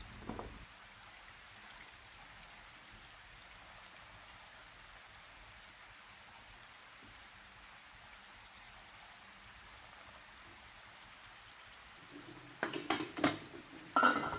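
Faint steady hiss, then near the end a run of metal clanks and a ringing clink as the stainless steaming tray of pumpkin and the pot's lid are set in place on the steamer.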